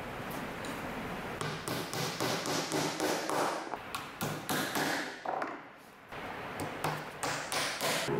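Small hammer tapping small nails into a thin wooden batten, fixing it over insect-screen mesh: a quick, irregular run of light taps starting about a second and a half in, with a short pause a little past the middle.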